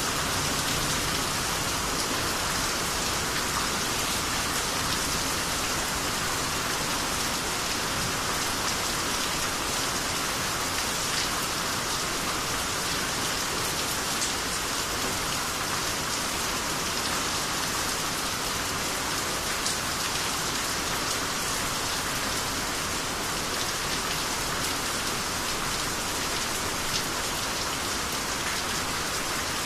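Steady rainy-season rain falling, an even hiss with scattered single drops tapping through it.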